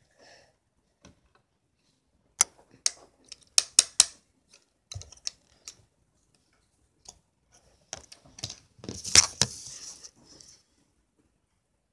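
Handling noise from a phone camera: scattered sharp clicks and taps, then a louder rustling clatter about nine seconds in.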